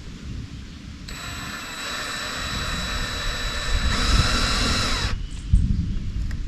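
Power drill boring a hole in a rifle stock for a bipod mounting stud. It runs with a steady whine for about four seconds, gets louder about a second before it stops, and then stops suddenly.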